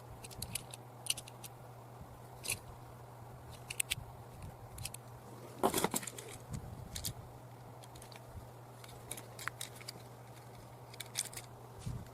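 Scattered light clicks and ticks of small plastic toy cars and their packaging being handled, over a steady low hum.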